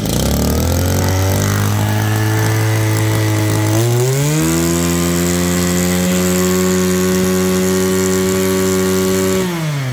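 Mitsubishi TL261 two-stroke brushcutter engine running just after being primed and pull-started. It holds a lower speed, rises to a higher steady speed about four seconds in, then drops back near the end.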